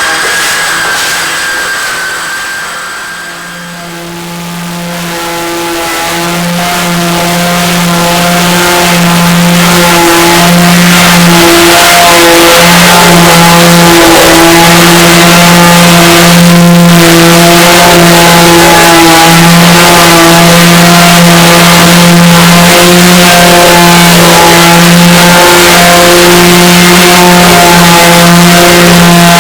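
A motor running at a steady speed, a loud hum with a fixed pitch that swells in over the first few seconds and then holds.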